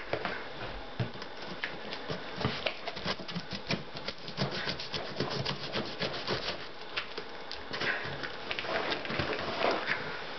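Hands scratching and picking at packing tape on a cardboard shipping box and shifting the box: a dense, irregular run of small scratches and crackles.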